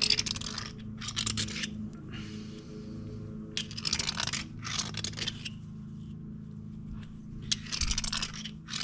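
Metal lathe running with a steady motor hum while the spinning brass bush is scraped in repeated short rasping strokes, cleaning up the lip left on its inside.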